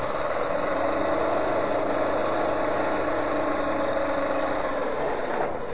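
Heavy demolition machinery's engine running steadily at a constant pitch.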